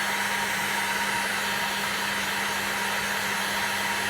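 Hot-air heat gun blowing steadily with a constant motor hum, shrinking heat-shrink crimp connectors onto wiring.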